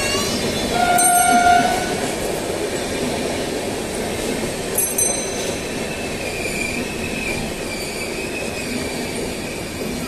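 Passenger coaches of the arriving Karnavati Express roll past with a steady rumble of wheels on rail. A short, steady train horn blast sounds about a second in. From about the middle onward a wavering high wheel squeal comes in as the train slows.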